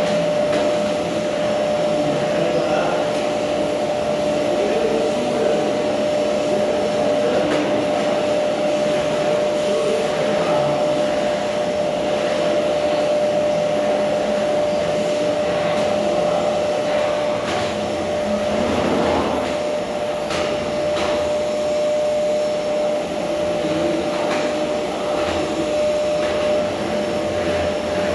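Vacuum cleaner running steadily with a constant high motor whine, with a few brief knocks and scrapes as it is pushed along the floor.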